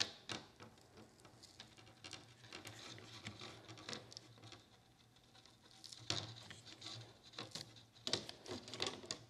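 Faint, irregular clicks and creaks as an Irwin Quick-Grip bar clamp is worked tighter onto a 3D-printed PLA forming die in a sheet-metal window channel. The clicks bunch together about six seconds in and again near the end.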